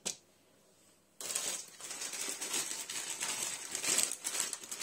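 A plastic freezer bag crinkling and rustling as it is handled, starting about a second in after a short quiet spell.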